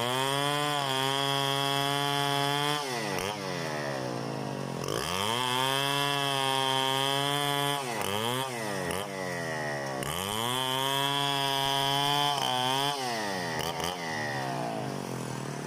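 Two-stroke chainsaw held at full throttle in three long runs of about three seconds each. Between runs it drops back toward idle with short blips of throttle, as in freehand milling of a log.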